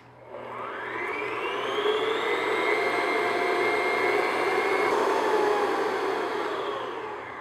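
Electric stand mixer running on medium-high speed, its paddle beating egg yolks and sugar in a glass bowl. The motor whine rises over the first couple of seconds, holds steady, then dies away near the end.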